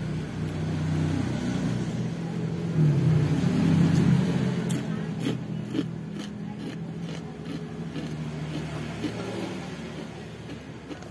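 A motor vehicle's engine hum swells about three seconds in and then slowly fades, as if the vehicle is passing by. Scattered light clicks follow over the fading hum.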